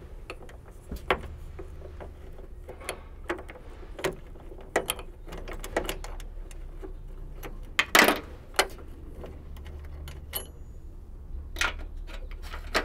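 Ratchet with a 10 mm socket loosening the hood shock's bolts: irregular clicks and small metal knocks, with one louder knock about eight seconds in, over a steady low hum.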